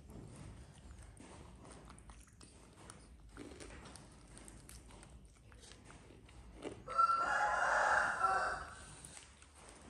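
A rooster crows once, loud and lasting about a second and a half, starting about seven seconds in. Before it, only faint clicks and smacking of people eating.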